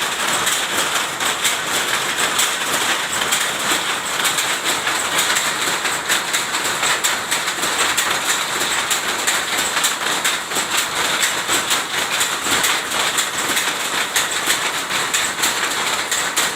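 Textile machine making Tapis Lampung cloth, running with a steady, rapid mechanical clatter.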